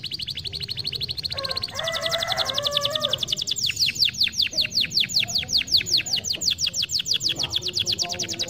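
Domestic canary singing a rolling song. It opens with a fast, buzzy trill, then about two seconds in switches to a long run of quick down-slurred notes, about eight a second, growing louder.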